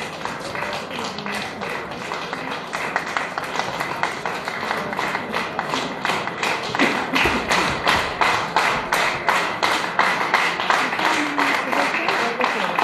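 Audience applauding, individual hand claps heard sharply and quickly, about four a second, growing louder about six seconds in.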